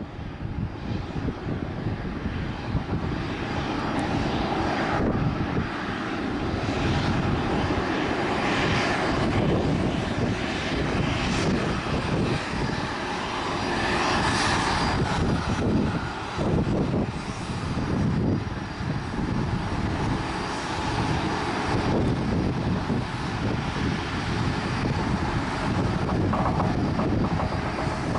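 Regional jet's engines running as the aircraft moves around the airfield, their noise swelling and easing. Wind buffets the microphone throughout.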